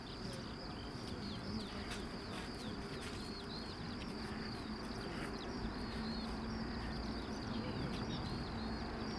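Distant Airbus A380 jet engines running at taxi power, a low steady rumble with a hum that grows louder in the second half as the airliner turns onto the runway. Many small high chirps sound over it.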